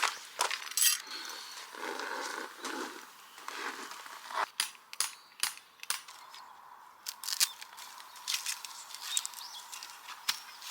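Tent being pitched by hand: irregular clicks and knocks of poles and fittings over rustling fabric, with a cluster of sharp clicks about halfway through.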